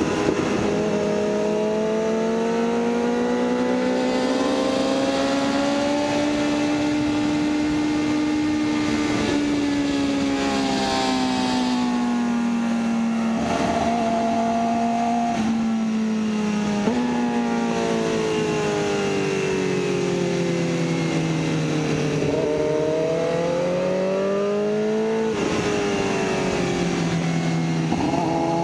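BMW S1000RR's inline-four engine at track pace, revs rising and falling through corners, with abrupt steps in pitch at quick gear shifts a little before halfway and twice more in the last third.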